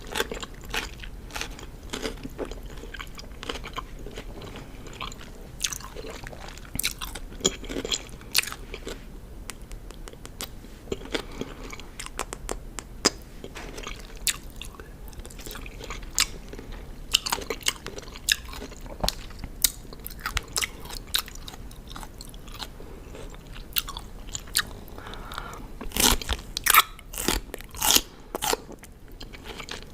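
Close-miked chewing of crunchy raw cucumber: irregular wet crunches and crackles as the bites are chewed, louder and denser bites near the end.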